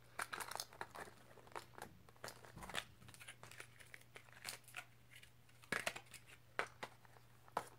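Small cardboard and plastic fishing-lure packaging being handled and opened, crinkling and tearing in short scattered rustles and clicks, with a faint steady low hum underneath.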